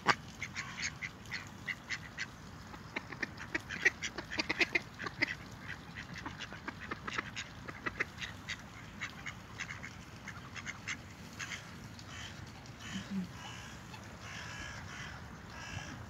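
A group of mallard ducks quacking, many short quacks in quick succession, thickest in the first half and thinning out after about ten seconds.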